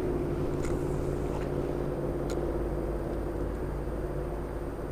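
Steady drone of a motor vehicle's engine holding an even pitch, easing slightly near the end, with a couple of faint ticks.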